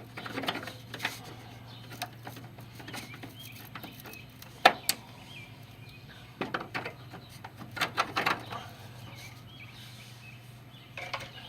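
Scattered metallic clinks and knocks of hand tools and parts being handled while working on a VW Beetle's engine, with one sharp clank near the middle. Birds chirp faintly in the background over a steady low hum.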